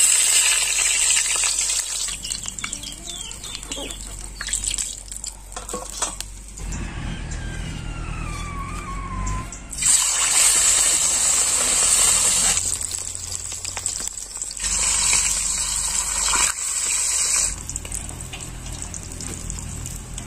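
Chicken leg pieces deep-frying in hot oil in an aluminium kadai, sizzling in a steady hiss that swells loudest at the start, about halfway and again a few seconds later. A few light clicks from the slotted metal spoon against the pan.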